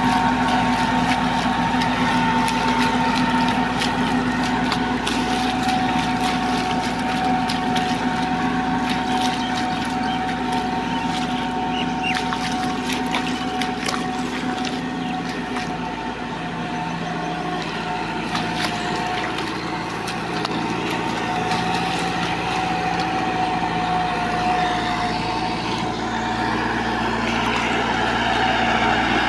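Combine harvester running steadily: a continuous engine and machinery drone with a whining tone that drops slightly in pitch a few seconds in, and light crackling over it.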